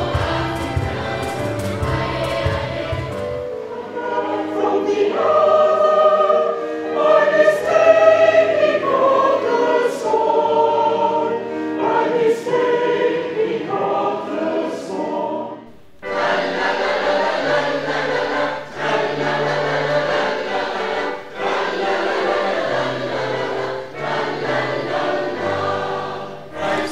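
Choir singing in several parts. Just past halfway the music breaks off suddenly and a different choral piece begins.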